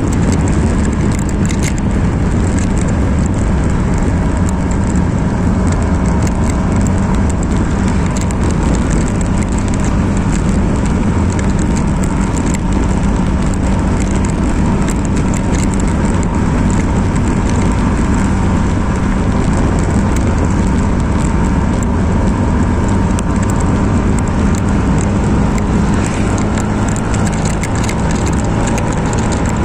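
A motorcycle being ridden at a steady road speed: the engine hums steadily under a loud, even rush of wind and road noise.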